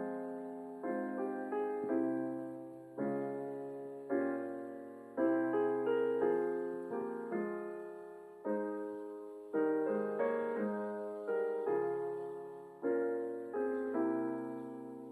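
Slow solo piano music: chords struck about once a second, each left to ring and fade.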